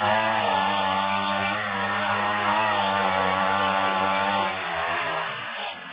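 Small engine of a hand-held power tool running at a steady speed on ice. It cuts in suddenly and eases off near the end.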